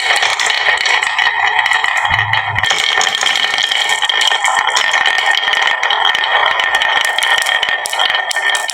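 Many marbles rolling and clattering continuously down a wooden marble run track.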